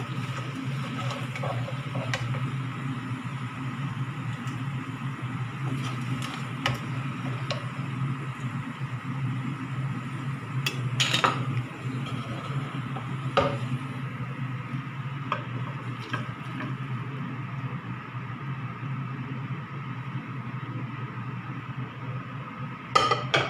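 Spatula scraping and knocking against a nonstick frying pan as fried chicken pieces are scooped out, with a few sharp knocks and a sharper clank about 11 seconds in. A steady hum runs underneath.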